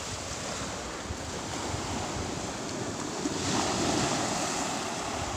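Sea surf breaking and washing onto a pebble beach, a steady rush that swells louder as a bigger wave comes in about three and a half seconds in.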